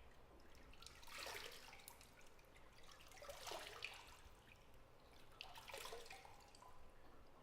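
Bathwater splashing gently in three brief, faint swells, about two seconds apart.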